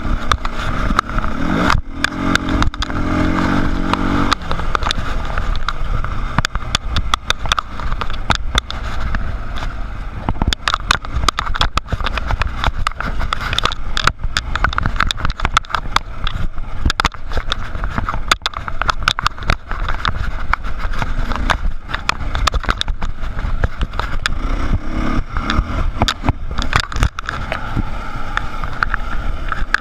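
Dirt bike engine running under throttle on a rough trail, revving up in the first few seconds and again near the end, with a dense, constant clatter of knocks and rattles as the bike jolts over rocks.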